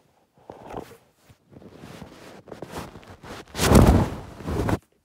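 Handling noise from a phone's microphone rubbing and scraping against bedding as it is moved. The rustling comes in patches and is loudest near the end, then cuts off suddenly.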